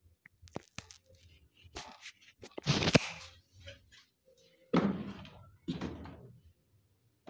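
A run of knocks, thuds and clatters as cookware is handled at a gas stove and a pot's lid comes off. The loudest clatter comes about three seconds in, followed by two rougher, scraping bursts.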